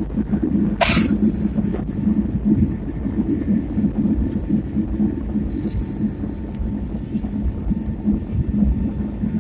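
Airliner engines and airflow during the takeoff climb: a steady low rumble with a constant hum. One short sharp noise about a second in.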